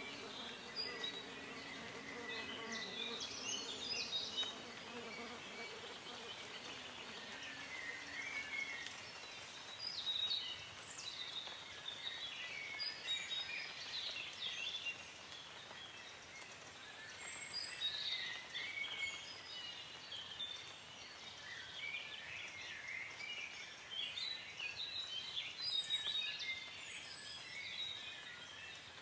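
Birds chirping and singing, many short calls coming and going over a faint hiss, with a faint low hum under the first eight seconds or so.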